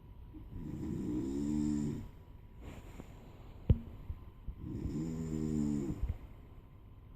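A sleeping man snoring: two long snores about four seconds apart, each lasting about a second and a half, with a single sharp click between them.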